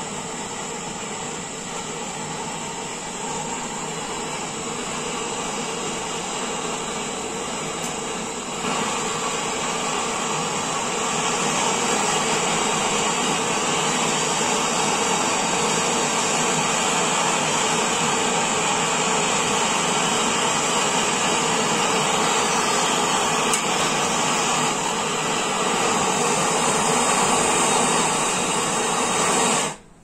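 Handheld gas torch on a fuel canister, its flame hissing steadily as it heats a copper pipe joint to red heat for brazing. The hiss gets louder about a third of the way in and cuts off sharply near the end as the torch is shut off.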